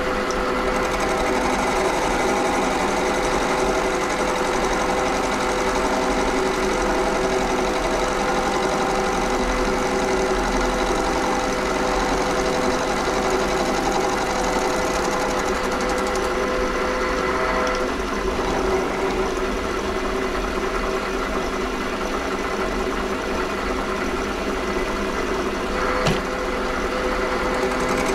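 WM210V variable-speed bench lathe running steadily while turning a Delrin workpiece. A steady whine in its running stops about two-thirds of the way through, and there is a brief click near the end.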